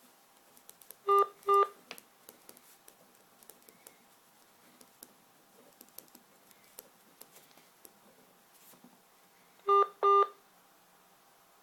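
Telephone line on hold, giving two short beeps about a second in and two more near the end, with faint clicks and line hiss between them.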